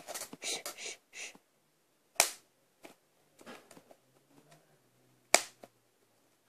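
Bubble wrap being popped between the fingers: plastic crinkling at first, then single sharp pops, the two loudest about two and five seconds in, with fainter ones between.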